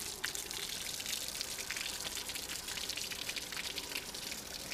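Water from a garden hose flushed up through the cooling passages of a Mariner 4 hp two-stroke outboard, splashing and pouring out of the open cylinder-head water jacket and carrying out sand and grit.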